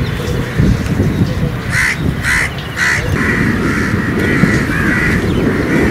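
Crows cawing: three short caws about two seconds in, then further calling, over a low rumbling noise.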